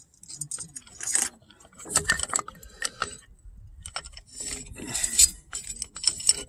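Metal clinking and rattling as a C-clamp is set over a brake caliper and handled, in irregular clusters of clinks, the loudest about two seconds in and again about five seconds in.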